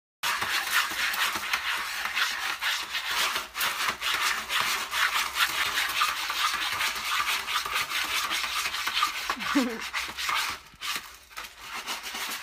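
A cat digging in a plastic litter tray, a rapid, continuous scratching and raking of granular litter and the tray. The scratching thins out and gets quieter near the end.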